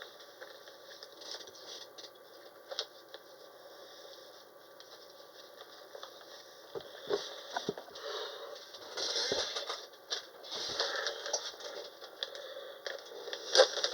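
Handling noise from small objects being worked by hand: faint scraping, tapping and crackling with scattered sharp clicks, busier in the second half.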